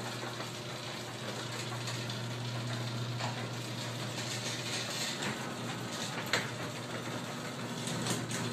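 Craftsman half-horsepower belt-drive garage door opener running, a steady motor hum with mechanical rattle as it drives the door, its belt loose.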